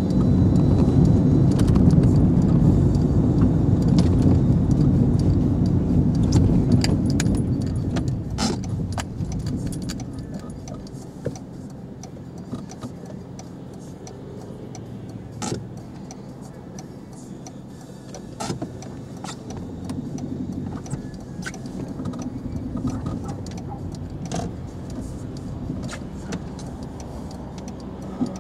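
Car cabin noise while driving: engine and road rumble, louder at first, then dropping a lot about a third of the way in as the car slows and waits in traffic. Scattered light clicks and rattles inside the car.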